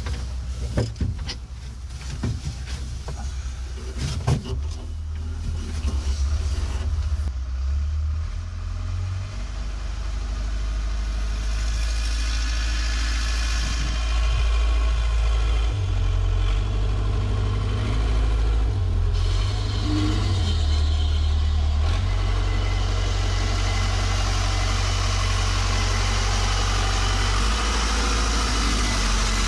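A machine's engine idling steadily on a test run, its deep hum stepping up and down a few times. It is preceded by a clatter of knocks during the first several seconds.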